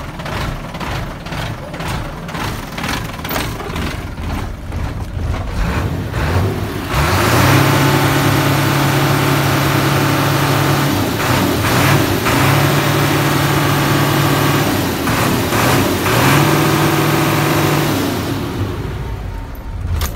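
Mitsubishi Fuso Fighter's 6D16 inline-six diesel running, at first at an even pulsing idle. About seven seconds in it is raised to a steady higher speed and held there, dipping briefly twice. It eases back down near the end.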